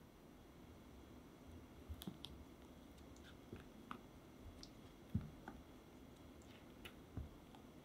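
Faint scattered clicks and soft taps of a spatula against a glass mixing bowl as melted chocolate is folded into a thick cream base, over quiet room hiss; the loudest is a dull knock about five seconds in.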